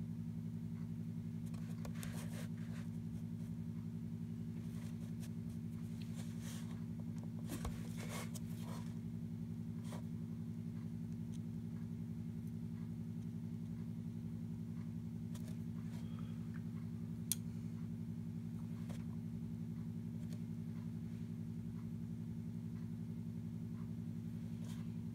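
A steady low hum of several tones runs throughout. Over it come faint, scratchy strokes and dabs of a paintbrush on watercolour paper, clustered in the first third, and one sharp click about seventeen seconds in.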